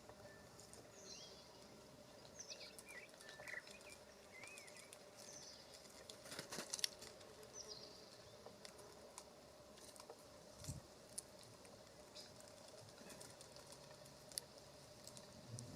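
Small songbirds giving faint, short chirping calls around a bird bath. A cluster of sharp ticks and taps comes about six to seven seconds in, with a few more later.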